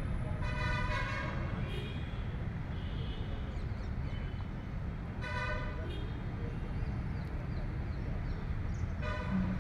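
Vehicle horns tooting briefly three times, at the start, about halfway and near the end, over a steady low rumble of traffic and wind.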